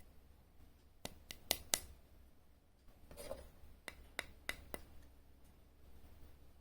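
Small sharp clicks from hand work on small parts: four in quick succession, a brief rustle, then four more.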